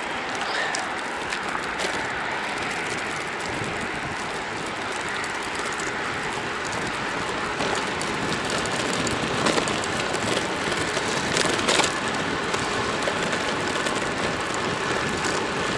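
A steady rush of wind on the microphone and the tyres of a moving road bike rolling over a concrete path. A few sharp knocks come about two thirds of the way through.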